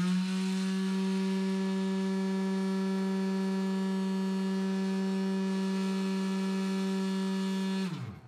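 Electric motor of a homemade two-motor belt grinder running under power, with the second motor connected to a load: a steady whine with a clear pitch and overtones. Near the end it winds down with falling pitch.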